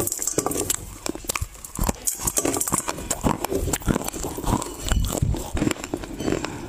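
Close-miked crackling and crunching of dry loess clay being broken off a block and bitten, with wet mouth sounds of chewing.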